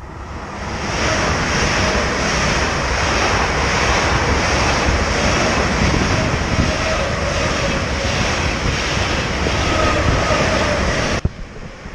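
SBB electric passenger train running past at speed right beside the platform: a steady rush of wheel and air noise with a faint motor whine, buffeting the microphone with wind. It cuts off suddenly near the end.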